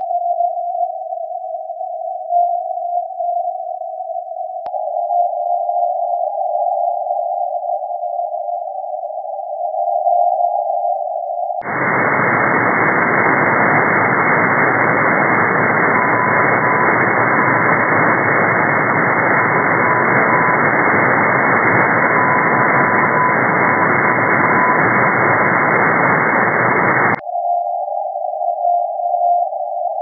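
Russian M12 number station's Morse code received on a shortwave software-defined receiver in CW mode: beeping tones over hiss through a narrow filter, with a click about five seconds in. About twelve seconds in the sound opens out into loud wide static with the Morse faint and higher-pitched. About 27 seconds in it drops back to the narrow filtered tone.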